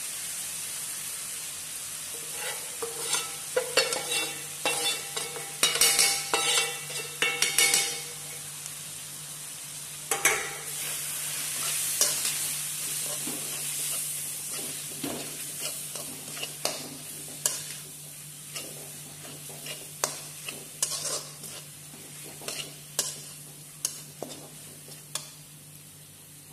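Onion-tomato masala frying in a kadai while freshly added roasted spice powder is stirred in with a stainless steel spatula. The spatula scrapes and clinks against the pan, with a flurry of ringing clanks from about three to eight seconds in and scattered taps after. Under them the sizzle gradually fades.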